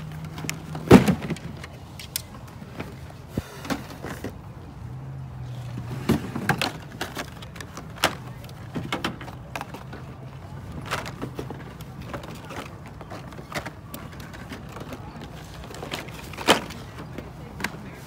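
Diecast toy cars being handled and picked through, with irregular clicks and clacks, the sharpest knock about a second in, over a steady low hum.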